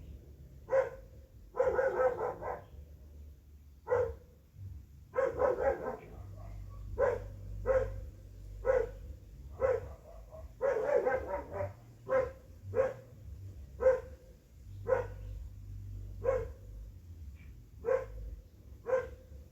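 A dog barking repeatedly, mostly single barks about once a second, with a few quick runs of several barks in a row.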